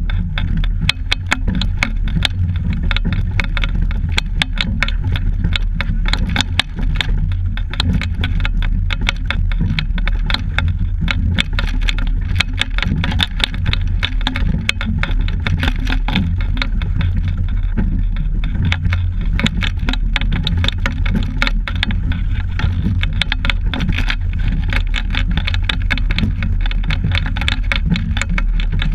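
Sound picked up by a camera fixed to a double-scull rowing shell under way: a steady low rumble with constant rattling and clicking from the boat and its mount as the crew rows.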